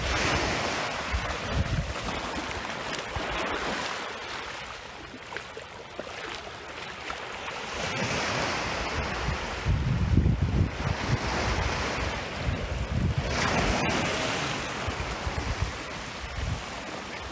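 Small waves breaking and washing up over a sandy, pebbly shore of a calm sea, the wash swelling and fading every few seconds. Wind buffets the microphone with a low rumble at times, most strongly about two-thirds of the way through.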